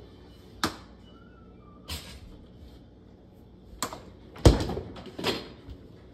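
Five sharp knocks and clatters from things being handled at a kitchen counter. The loudest is a heavy thud about four and a half seconds in.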